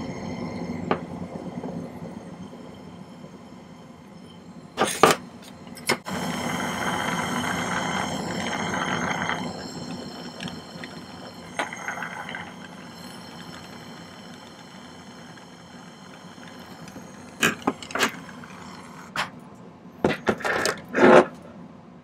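Jeweller's soldering torch flame hissing while hard silver solder is sweated onto a small sterling ring. The hiss gets louder for a few seconds about six seconds in. Metal tweezers and a solder pick click and tap on the soldering board several times, most of them in the last few seconds.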